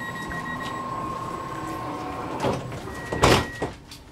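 Sliding doors closing: a steady warning tone with beeping, then the doors shut with a loud thump a little after three seconds in.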